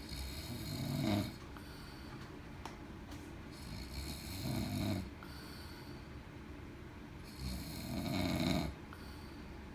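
A man snoring loudly in deep sleep: three long snores, each swelling and then cutting off sharply, roughly every three and a half seconds.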